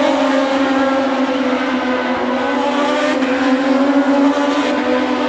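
MotoGP racing motorcycles' engines at high revs as a group of bikes runs through a corner, a loud, continuous engine note that holds fairly steady with small wavers in pitch.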